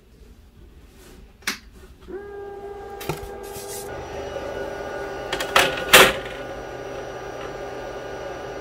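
Glowforge laser cutter's glass lid being lifted and a plywood board set down on its honeycomb bed: a few clicks and knocks, the loudest about six seconds in. Under them a steady machine hum with several pitches sets in about two seconds in.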